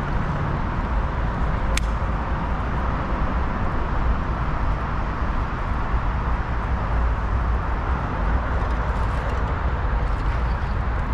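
Steady low rumble and hiss of outdoor background noise, with a single sharp click about two seconds in.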